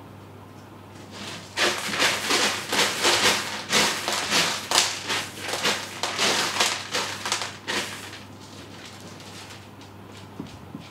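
A cat digging in pellet litter, its paws raking and scattering the pellets in a rapid run of scratchy, rattling strokes. The digging starts about a second and a half in and dies away near eight seconds, leaving only a few faint ticks.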